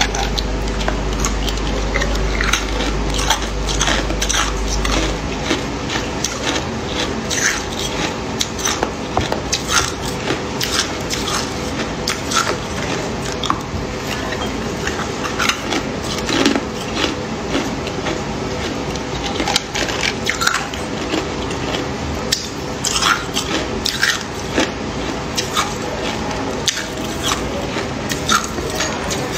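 Clear, hard ice cubes being bitten and crunched between the teeth: a continuous run of sharp cracking crunches.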